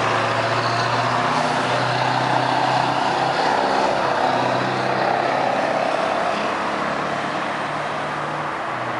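A motor vehicle's engine running steadily, a constant hum.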